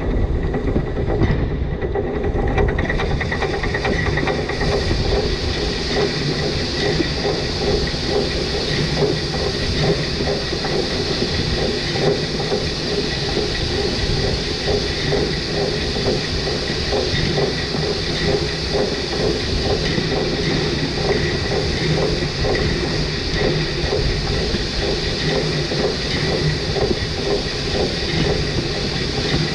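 Narrow-gauge (2 ft 6 in) steam locomotive running steadily along the line, heard from the front of the engine, with a rapid, continuous clicking rhythm of wheels on the rails.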